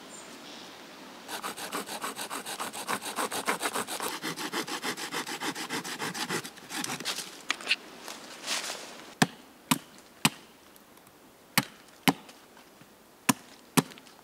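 A hand saw cutting through wood with quick, even strokes, about four or five a second, for roughly five seconds. Then come a few scattered scrapes and, in the second half, seven sharp knocks, mostly in pairs.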